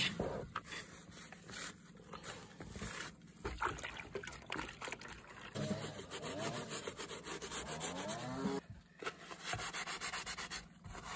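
Paper towel scrubbing a cushion with soapy water: irregular rubbing strokes with a squeaky stretch in the middle, then quick back-and-forth scrubbing near the end.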